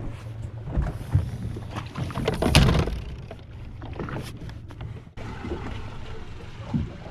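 Boat engine running with a steady low hum, under irregular knocks and rattles, with a louder thump about two and a half seconds in.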